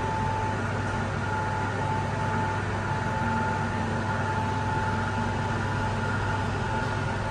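Schindler 3000 AP traction elevator car travelling upward, heard from inside the cab: a steady hum with a constant high tone over an even rush of noise.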